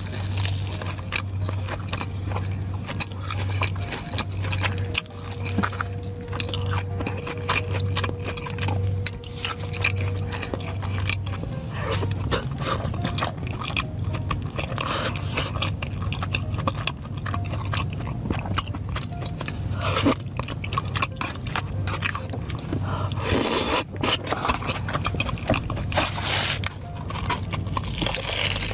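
Close-miked crunching and chewing as a person bites into and eats crispy fried food, such as a breaded corn dog and a fried skewer. Background music with a steady low beat plays underneath.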